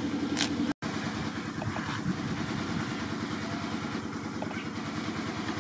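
A motor engine running steadily at a low idle-like pitch, cutting out for an instant just under a second in.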